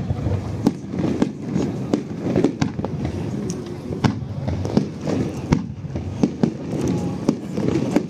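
Fireworks going off in a rapid, irregular string of sharp bangs, about two a second, over a steady low rumble.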